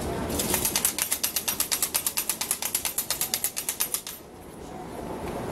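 A matraca, the wooden clapper sounded in Holy Week processions in place of bells, clacking rapidly and evenly at about eight clacks a second for nearly four seconds, then stopping abruptly.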